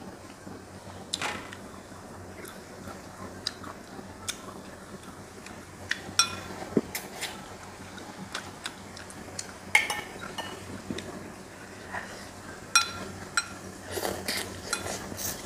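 Metal spoon clinking and scraping against a glass bowl of braised fish, a sharp clink every second or two, with close-up eating sounds near the end.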